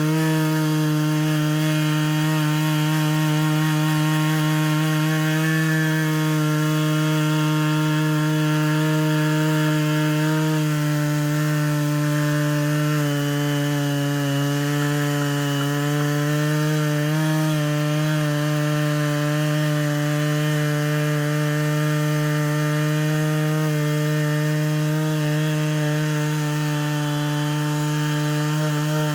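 Stihl MS 660 two-stroke chainsaw on an Alaskan chainsaw mill running steadily at high speed, ripping a slab lengthwise from a Western red cedar log with a rip chain. Its pitch sags slightly about halfway through as the cut loads the engine, then comes back up.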